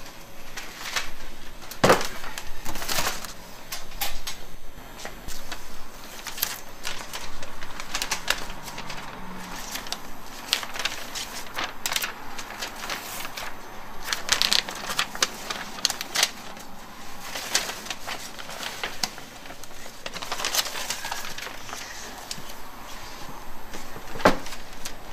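Baking paper crinkling and rustling as it is peeled off a large castella sponge cake, in a run of irregular small crackles. A few sharp knocks of metal bakeware on a steel worktop, the loudest about two seconds in and near the end.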